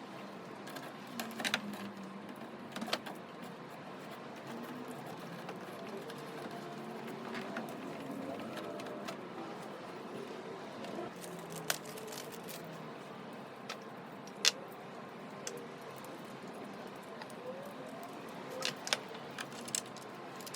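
Scattered small clicks and light rattles at irregular moments, the sharpest about halfway through, over a faint low murmur.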